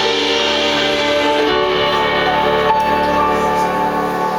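Instrumental accompaniment between sung lines of a slow ballad: held chords that change twice.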